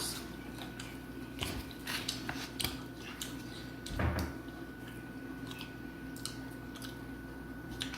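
A person chewing fried chicken with open-mouthed smacking: scattered short, wet clicks and smacks, with a slightly louder one about four seconds in.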